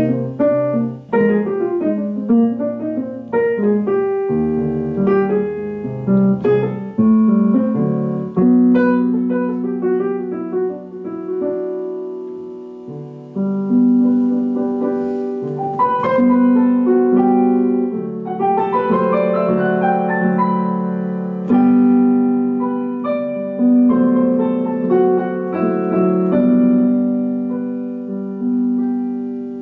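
Solo piano sound played on a digital keyboard: a melody over held chords, with the last chord dying away near the end.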